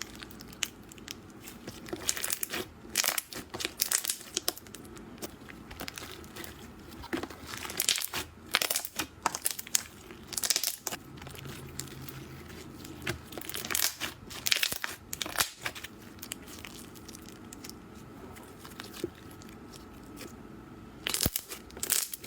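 Slime being pressed and stretched by hand, giving irregular bursts of crackling, crunchy popping. There is a quieter stretch a few seconds before the end, then a last burst of crackles.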